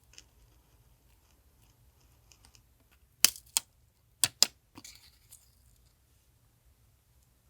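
Paper and stationery being handled on a desk: soft rustles and light ticks, then four sharp clicks in two quick pairs a little past halfway, followed by a brief papery rustle.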